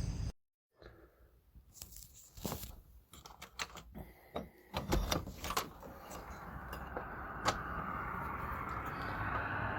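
Front door lock being worked: a run of sharp clicks and taps, a single louder click later, then a steady hiss that swells toward the end.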